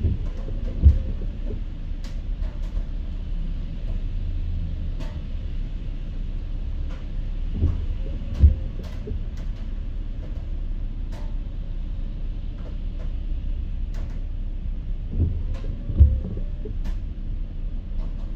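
Steady road and engine rumble inside a moving car in rain, with light ticks of raindrops on the glass. Windshield wipers on an intermittent setting sweep three times, each sweep giving a pair of soft thumps.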